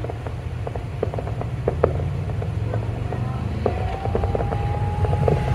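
Fireworks display heard from a distance: many short pops and crackles from bursting shells over a steady low rumble, with a thin whistling tone held for about two seconds near the end.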